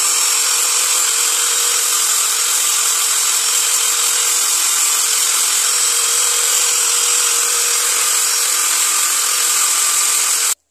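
Handheld angle grinder with a sanding pad running at a steady high whine while a small carved teak-wood lure body is sanded to shape against it. The sound cuts off abruptly near the end.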